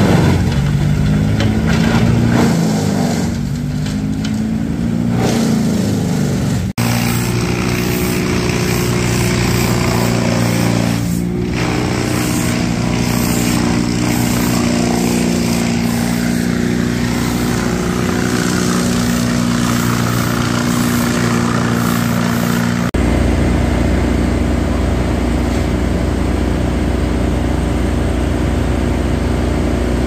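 A wood chipper's engine labouring as branches are fed in, its pitch sagging and recovering. After a cut about seven seconds in, a heavy engine runs at a steady pitch, joined by a deeper rumble after another cut near the end.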